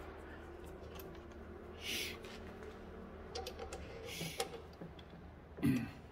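Small metal clicks and scrapes of hand-fitting a drill bit in a milling machine's drill chuck and lining it up over the workpiece, with the machine not yet running. A brief louder sound comes near the end.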